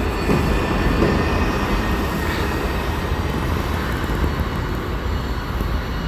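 Steady rumble of passing street traffic, a large vehicle going by with a faint whine on top.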